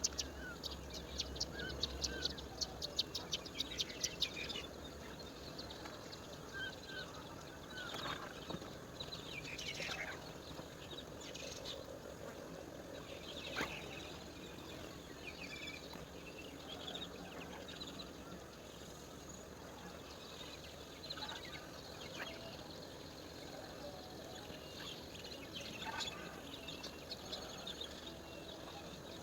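Woodland ambience: scattered bird chirps and calls over a steady background hiss, with an insect's fast, evenly pulsed high call during the first four seconds.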